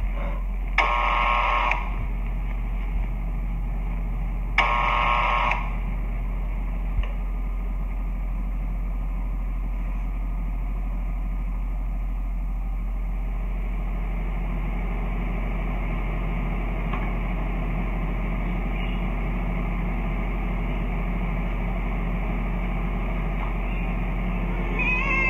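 Two electronic-sounding beeps, each about a second long and about four seconds apart, over a steady low hum and hiss.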